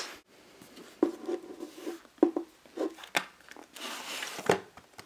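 Unboxing handling of a cardboard tablet box: scissors snipping through the seals, a run of light clicks and taps, and a papery scraping about four seconds in as the printed outer sleeve slides off the inner box.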